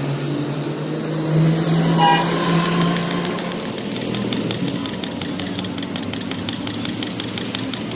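A motor vehicle engine running steadily nearby, swelling briefly about two seconds in. From a couple of seconds in, a rapid, even ticking of about eight ticks a second runs alongside it.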